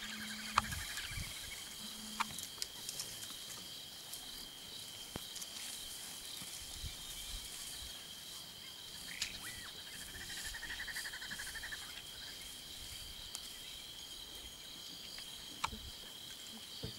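Steady, high-pitched cricket drone over the bush, broken by a few sharp snaps of twigs and branches as elephants browse. A brief rapid trill is heard twice, at the start and about ten seconds in.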